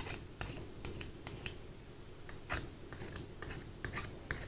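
Irregular light clicks and taps of small metal parts being handled and set against a wooden rifle stock, about a dozen in all, the loudest about halfway through.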